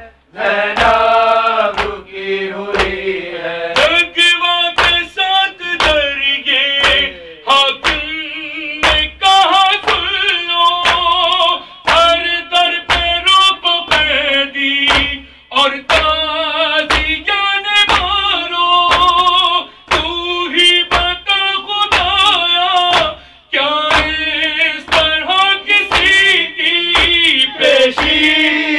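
A man chanting a lament-like song into a microphone, the voice wavering over a steady beat of hands striking the chest (matam) about every half second. The rhythm stops briefly near the end.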